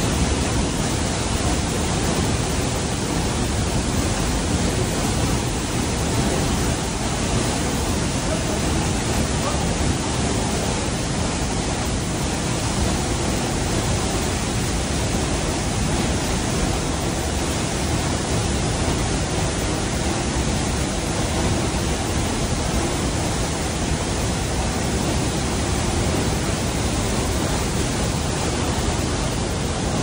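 Waterfall pouring into its plunge pool: a loud, steady rush of falling water that does not change.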